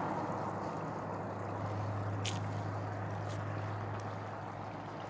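Steady distant engine rumble with a low hum, with three brief high clicks or chirps about halfway through.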